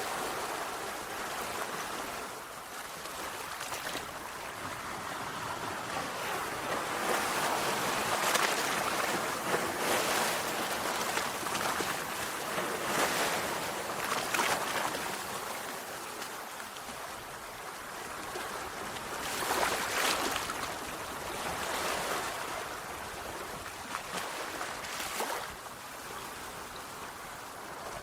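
Sea waves breaking and washing on a shore, swelling and easing every few seconds.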